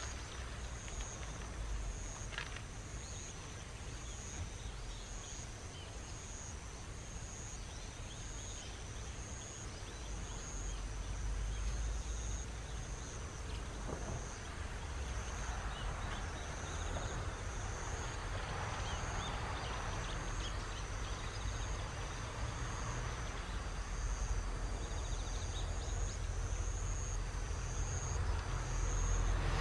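Outdoor field ambience: a low background rumble with an insect chirping in a high, evenly repeated pulse about once a second.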